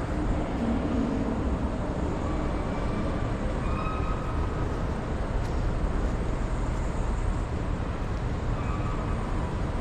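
Steady low rumble of background ambience, with faint distant voices now and then.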